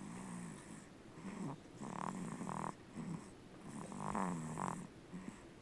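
Sleeping infant snoring, a short rough snore with each breath, about every two seconds.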